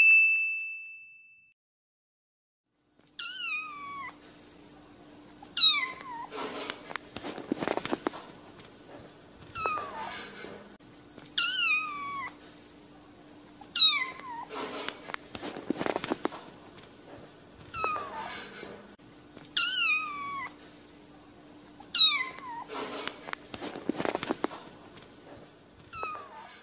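Cat mewing: high calls that fall in pitch, in pairs, with a low steady hum and rustling noise between them, the same pattern repeating about every eight seconds like a looped recording. A single chime dings at the very start.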